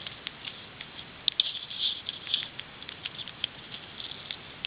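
Pet rat making small, irregular clicks and patters, busiest from a little over a second in to about two and a half seconds in.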